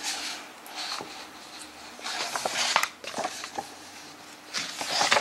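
Pages of a hardcover book being turned by hand: a few separate rustling sweeps of paper with small taps and clicks.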